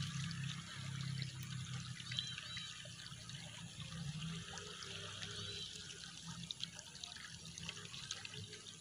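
Quiet steady trickle of flowing river water, with faint light rustling as a nylon cast net is handled.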